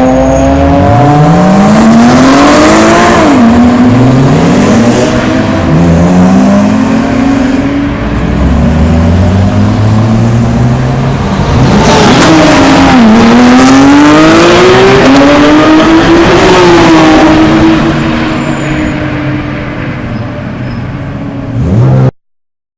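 Race cars accelerating hard out of a pit lane, engines climbing in pitch through the gears with quick upshifts. About twelve seconds in, a car passes close by with a sharp rise and fall in pitch. The sound then cuts off abruptly.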